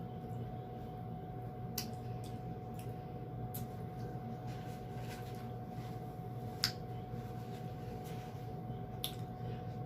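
Close-up sounds of peeling and eating shrimp in sauce: wet squishing with a few sharp clicks of shell, the loudest about two-thirds of the way through, over a steady hum.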